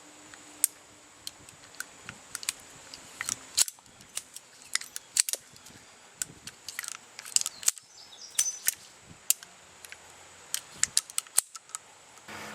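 Ruger Super Blackhawk single-action revolver being handled for reloading: a string of sharp metallic clicks at an uneven pace, from the cylinder being turned and cartridges being handled.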